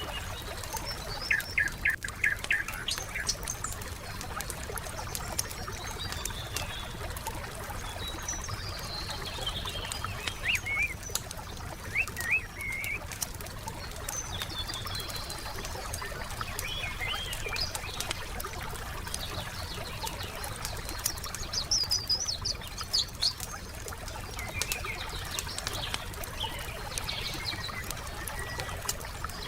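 Wood campfire crackling with many small pops throughout, while small forest birds chirp in short bursts of rapid notes every several seconds.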